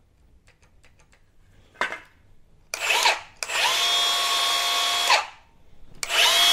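Milwaukee M18 BLCS66 brushless cordless circular saw run free in the air after a few faint clicks: a short blip, then a run of about two seconds at a steady whine, then another start near the end. Each time the blade stops quickly once the trigger is let go.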